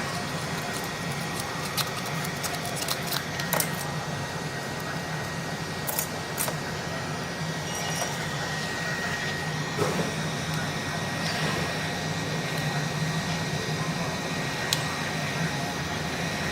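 Steady low hum with a thin high whine, and scattered light clicks and taps from small tools being handled.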